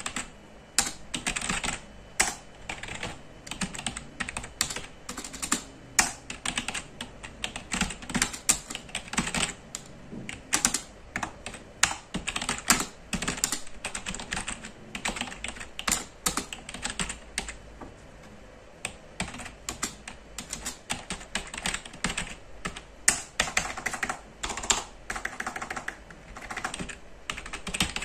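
Trust GXT 830-RW Avonn gaming keyboard being typed on: a fast, continuous clatter of key presses, thinning out briefly a little past the middle.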